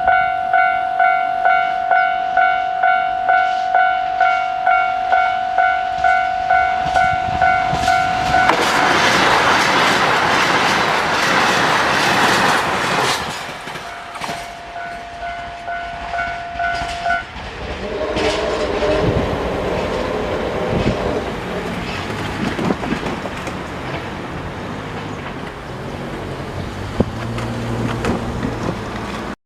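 Japanese level-crossing warning bell ringing steadily about twice a second. About eight seconds in, a KiHa 261 series 5000-subseries diesel express train passes over the crossing with loud wheel clatter that drowns the bell. The bell stops about halfway through, leaving the train's diesel rumble as it moves away.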